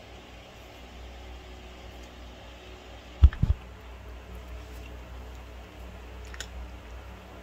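Cat eating dry kibble, with faint crunching clicks over a steady low hum. About three seconds in comes a loud low thump, followed quickly by two smaller knocks.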